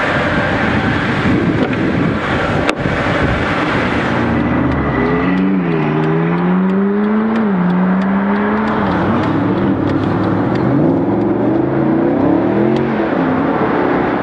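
Mercedes-Benz SLS AMG's V8 engine heard from inside the cabin, pulling away and accelerating. Its pitch climbs and drops back several times as it changes gear. For the first few seconds there is a rougher steady rumble, with a single sharp click about three seconds in.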